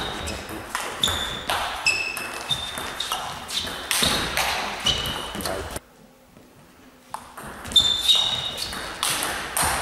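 Table tennis rally: the ball clicking off the bats and the table with short ringing pings, about two hits a second. The sound drops out for about a second and a half around six seconds in, then the hits start again.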